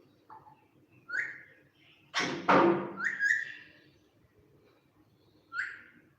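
Pet parrot calling: a few short whistles that rise in pitch, and one loud harsh screech about two seconds in.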